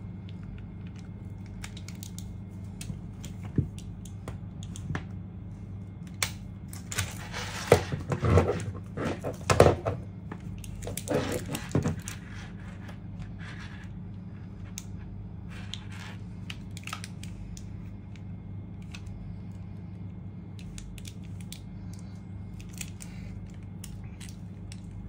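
Hands handling a laptop power adapter and its cable while plugging it in: scattered clicks, then a few seconds of rustling and knocking about seven to twelve seconds in, over a steady low hum.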